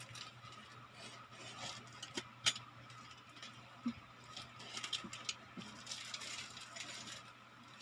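Packaging handled during an unboxing: scattered light clicks, taps and rustles, the sharpest about two and a half seconds in and a cluster around five seconds, over a faint steady hum.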